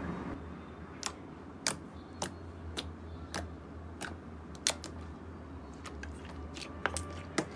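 Slime being handled by hand, making sharp clicking pops about once or twice a second, over a faint steady low hum.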